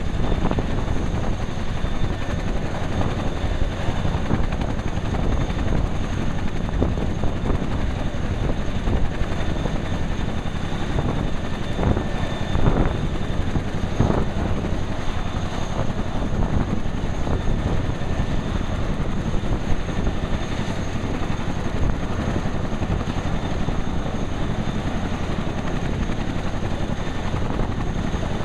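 Boeing CH-47 Chinook helicopter running on the ground while warming up: its twin turboshaft engines and tandem rotors turning steadily, a constant heavy rush with a steady high whine over it.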